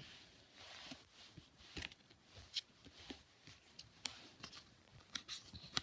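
Pokémon trading cards being handled: faint, scattered light clicks and soft rustles of card stock.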